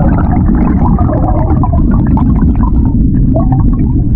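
River water heard through a GoPro submerged in the current: a loud, steady low rumble of flowing water, with bubbling and gurgling over it.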